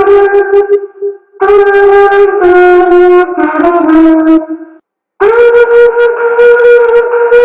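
A slow tune of long held notes in a buzzy, horn-like tone, made by mouth. The notes step downward and then back up, with two short breaks, one about a second in and a longer one near the middle.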